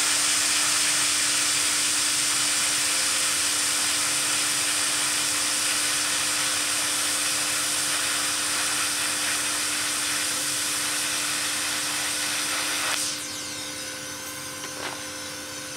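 TIG welding arc from a Vevor 210A welder hissing steadily, with a steady hum underneath. The arc cuts off about thirteen seconds in, leaving a fainter hiss.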